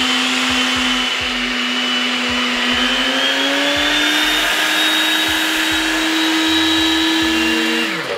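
Small personal blender's motor running at full speed, grinding dry oats into flour; its hum rises slightly in pitch about three seconds in, then winds down and stops near the end.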